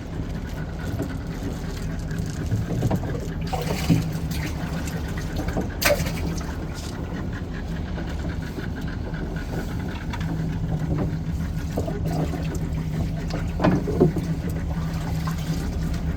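Boat motor running steadily with a low hum, and a few sharp knocks on board, about four, six and fourteen seconds in.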